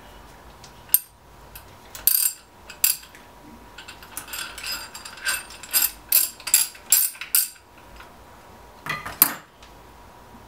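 Sharp metal clicks and clinks from a ratchet wrench with a 5/8-inch socket loosening a centrifugal pump's impeller cap, then the cap clinking as it is unscrewed by hand and lifted off. The clicks come singly at first, then in a quick cluster in the middle, then a last pair near the end.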